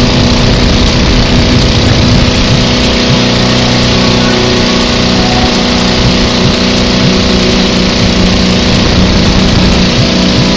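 Speedboat's inboard engine running hard at speed: a loud, steady drone, with the rush of water and spray and wind on the microphone.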